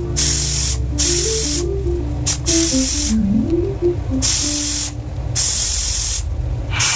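Pressure cooker venting steam in about six sharp hissing spurts, each half a second to a second long, as its whistle weight is lifted to let the pressure out. Background music with a simple melody plays under it.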